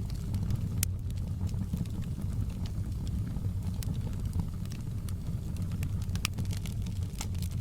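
Open log fire burning in a fireplace: a steady low rumble of the flames with scattered sharp crackles and pops from the burning logs, a few coming close together near the end.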